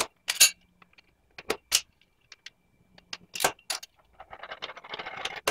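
Thin metal strips clinking against each other and against 3D-printed plastic brackets as they are fitted together by hand: a string of sharp clicks, then a scraping slide starting about four seconds in.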